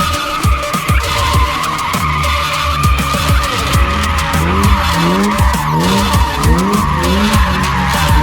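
Car tyres squealing continuously in a burnout, with the engine revving hard. Electronic music plays underneath, its rising bass figure repeating from about halfway through.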